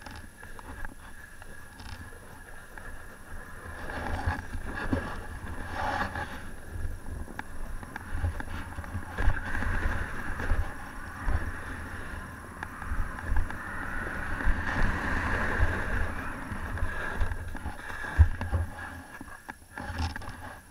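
Wind buffeting an action camera's microphone during a downhill ski run, over the continuous hiss and scrape of skis sliding on packed snow, swelling and fading with the turns.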